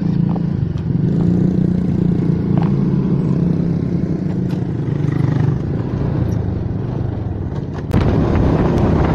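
Small motor scooter engines running as the bikes pull away slowly, a steady low hum. About eight seconds in it switches abruptly to a louder, rougher rush of riding noise.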